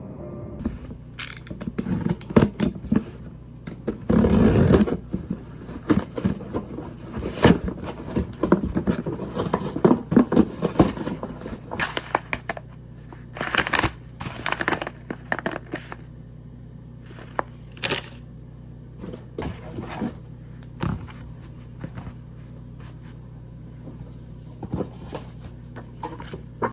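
Objects being handled at close range: an irregular run of clicks, knocks and scrapes over a steady low hum, with a longer rustling burst about four seconds in.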